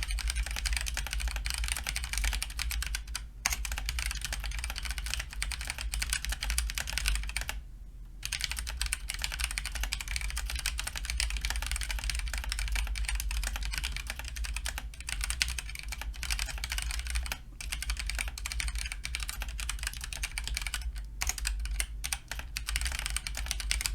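Fast continuous typing at about 97 words per minute on a Razer BlackWidow Stealth mechanical keyboard with Razer Orange tactile switches, a dense stream of key clacks with brief pauses about three and eight seconds in.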